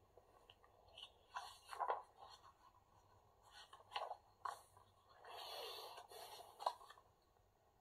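Faint rustling and soft scrapes of a paper picture book being handled, its pages leafed through and turned, with a longer rustle about five seconds in.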